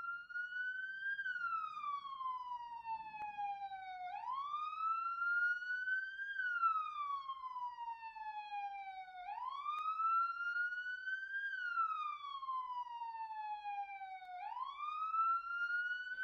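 Emergency-vehicle siren sounding a slow wail. Its pitch climbs quickly, then slides down over a few seconds, in about three cycles roughly five seconds apart.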